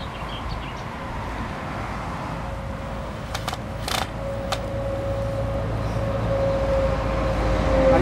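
Cordless drill working on the aluminium antenna tube: a few sharp clicks, then from about halfway a steady motor whine that grows louder toward the end.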